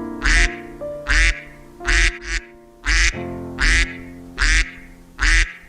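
Domestic duck quacking over and over, about one quack a second with a quick double quack near two seconds in, over background music.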